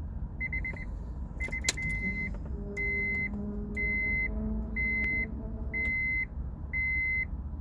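A car's electronic warning chime beeping steadily, about one half-second beep each second, after a few quick short pips at the start. A sharp click sounds about one and a half seconds in.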